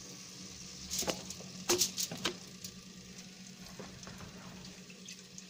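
Raw potato slices going into a pan of hot oil and cumin, with a few sharp knocks between one and two and a half seconds in as they land, over a faint sizzle.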